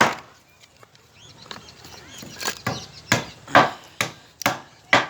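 Hammer blows on roof centring formwork as it is set up. One sharp knock at the start, then about six blows roughly half a second apart in the second half.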